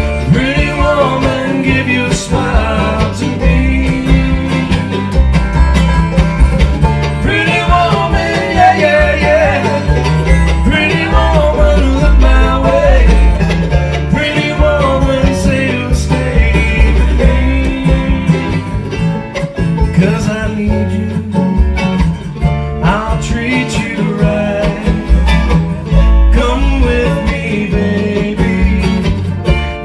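Bluegrass band playing live: mandolin, banjo, acoustic guitar and upright bass, with sung vocals.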